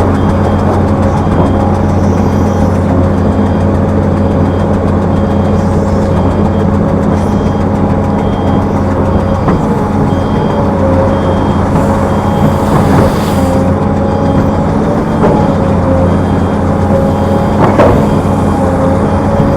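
Heavy diesel machinery, an excavator and dump trucks, running steadily with a deep engine drone. A short high warning beep repeats evenly throughout. A brief hiss of air comes about two-thirds of the way through.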